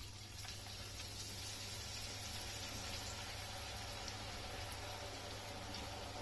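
Hot oil sizzling steadily as fresh strands of urad dal and rice dough are pressed into it to deep-fry jantikalu; the sizzle picks up about half a second in as the dough hits the oil.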